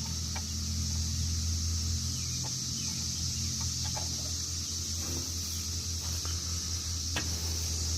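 Chickens clucking faintly over a steady low hum and a steady high-pitched hiss, with scattered small clicks.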